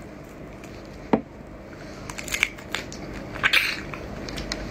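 Shrimp shell cracking and crackling as a raw shrimp in chili sauce is pulled apart and peeled by hand: a sharp snap about a second in, then two clusters of short crackles.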